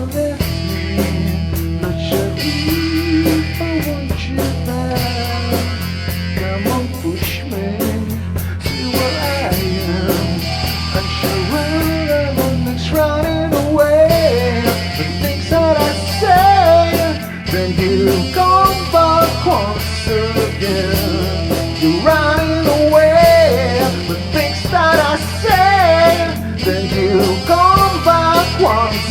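Rock band of electric guitar, bass guitar and drum kit playing an instrumental section, with a lead line of bending, wavering notes above the bass and cymbals that grows busier about halfway through.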